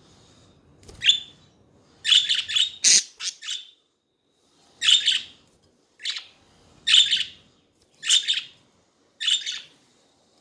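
Pet budgerigars chirping and chattering in short, high calls, a quick run of calls with a sharp click about three seconds in, then single chirps about once a second.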